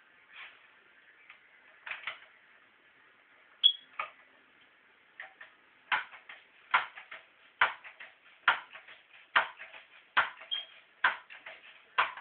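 A sharp pop about three and a half seconds in, a shot from a Crosman Pumpmaster 760 pellet air rifle, followed by footsteps at a steady walking pace, a little over one step a second, from about six seconds in.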